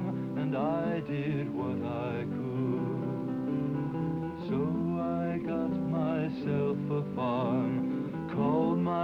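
Country-style film score music: acoustic guitar with a wavering melody line over it.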